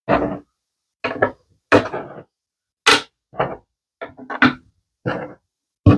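Hard resin refrigerator magnets being handled and set down on a hard surface: a series of about nine separate knocks and clacks over the six seconds.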